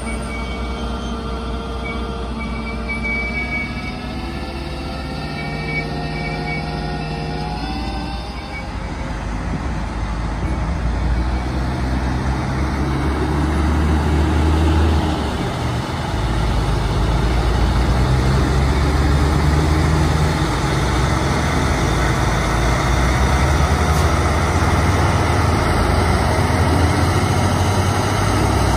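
Heavy diesel machinery working a silage pile: a truck unloading chopped silage, then a John Deere 9570R four-wheel-drive push tractor working its engine hard as it pushes and packs the pile. The sound grows louder about nine seconds in and stays loud.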